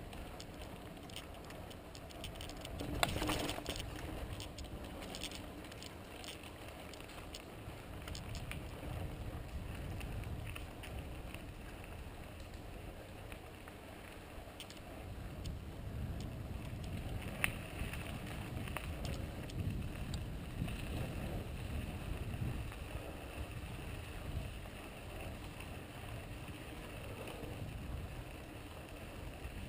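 Santa Cruz Tallboy LT mountain bike rolling along a dirt trail: tyres on packed dirt under a steady low rumble, with small rattles and clicks from the bike. There is a louder clatter about three seconds in and a sharp click past the middle.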